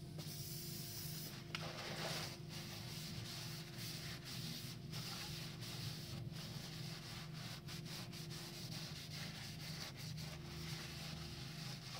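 An aerosol can of WD-40 hisses briefly near the start. Then a shop towel rubs and scrapes repeatedly inside a freshly honed cylinder bore of a 1.2 PureTech three-cylinder engine block.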